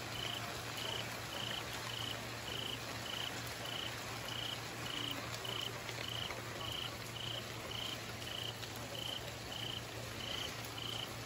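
Night-time tropical-storm ambience: a steady hiss of rain and wind with a low hum underneath. Over it, a small creature, a cricket or frog, calls in short, even pulses, a little under two a second.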